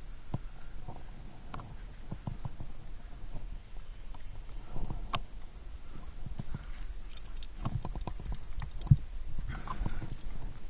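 Irregular scuffs, taps and knocks of a climber's hands and shoes on rock, with a few sharp metallic clicks from carabiners and quickdraws and some low thuds.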